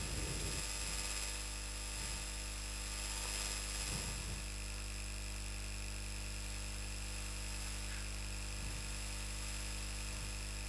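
Steady electrical mains hum and hiss, with a few faint scratches of a marker drawing lines on a whiteboard.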